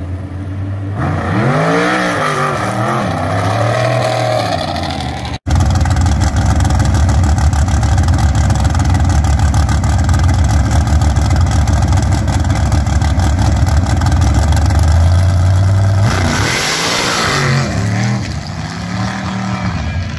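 Race engine revving up and down a few times, then a sand drag buggy's V8 with open exhaust running at the line with a heavy low rumble. About 16 seconds in it launches at full throttle, the revs rising and the sound falling away as it runs down the sand track.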